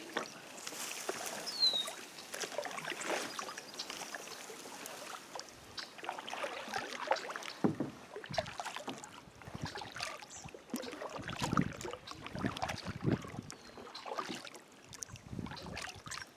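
Kayak paddling: the paddle dipping and pulling through water with irregular splashes, drips and light knocks on the hull.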